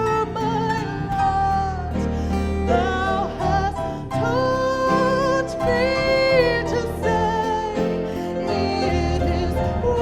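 Worship music: singing with held, wavering notes over a steady instrumental accompaniment.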